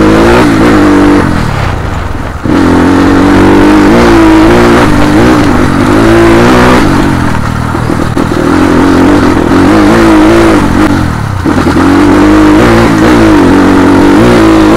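Motor vehicle engine accelerating, its pitch climbing and dropping back three times, as when shifting up through the gears.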